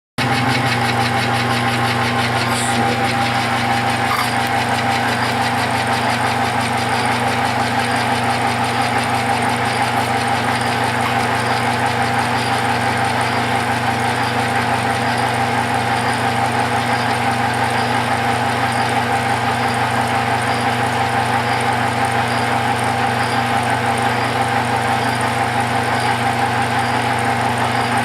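Metal lathe running steadily under power, with a constant motor and gear-drive hum and a whine above it, during a light facing pass.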